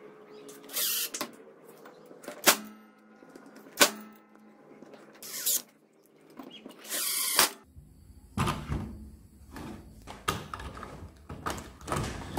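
Cordless drill driving screws through a steel plate into wood in three short bursts, with two sharp clicks between them. From a little past halfway, a run of knocks and clatter as parts are handled and fitted.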